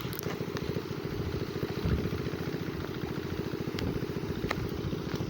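An engine running steadily, with a rapid even low pulsing and a few faint ticks.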